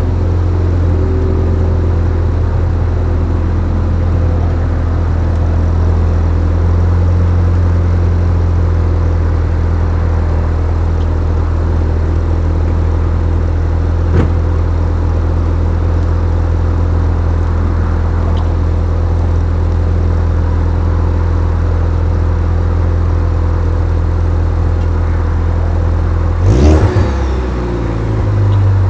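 2016 Ford Focus ST's turbocharged 2.0-litre four-cylinder heard at the exhaust tips, idling steadily, then blipped once in a quick rev near the end.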